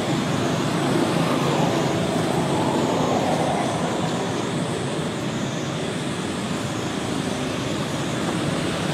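Steady, even background rumble and hiss with no distinct events, running at a fairly constant level.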